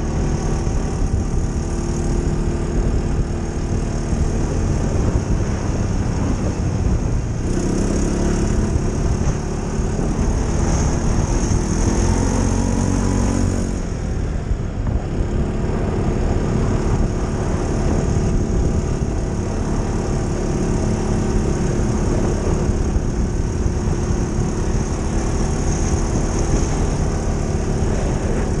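ATV engine running under way at a steady pace, with tyre noise on a gravel trail. Its pitch climbs for several seconds in the middle, then drops off briefly before settling back to a steady run.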